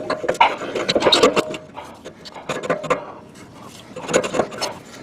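Exhaust parts being handled and fitted by hand: irregular clicks, knocks and scraping of metal pieces and a seal, busiest in the first two seconds and again near the end.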